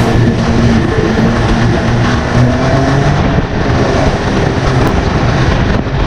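Snowmobile engine running steadily under way, its pitch wavering slightly with the throttle.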